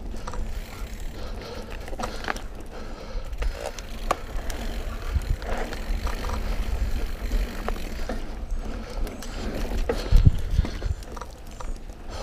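Mountain bike riding over a dirt singletrack: a steady low rumble with scattered clicks and rattles from the bike going over bumps, and a bigger jolt about ten seconds in.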